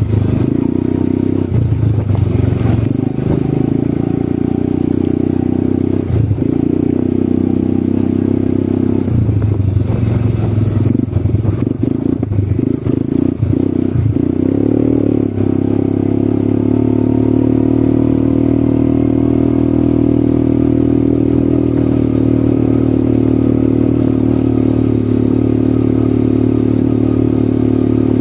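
ATV engine running, its note shifting and breaking off several times in the first half and then holding steady through the second half.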